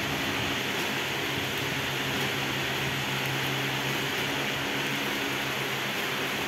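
Steady mechanical hum with a constant hiss over it, unchanging throughout.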